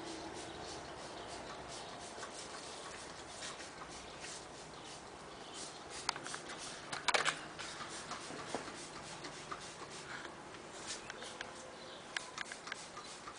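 Hand trigger spray bottle spritzing plants: a few short hissing squirts, the loudest about seven seconds in, with faint ticks and rustles between them.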